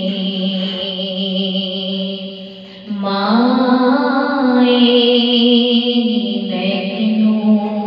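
A woman's voice singing a Punjabi devotional lament in long, drawn-out held notes. About three seconds in her voice drops away briefly, then glides up into a higher sustained note.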